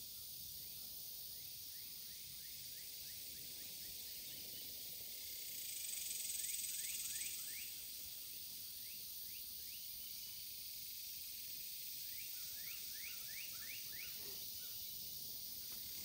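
Faint riverside ambience: a steady high insect hiss that swells briefly about six seconds in, while a bird gives several runs of quick, rising chirps.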